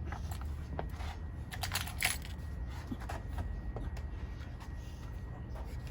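Scattered light plastic clicks, taps and scrapes from handling the oil bottle and funnel at the engine's oil filler, a little busier about two seconds in, over a steady low hum.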